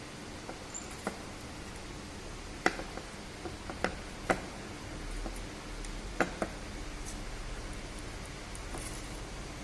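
Scattered light clicks and taps as a resistance wire's ends are handled and fastened into the screw terminals of a Carey Foster bridge, over a faint low hum.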